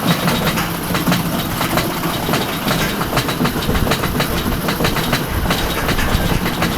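Mine Train roller coaster cars rattling along the track, with a dense run of rapid clicks and clatter.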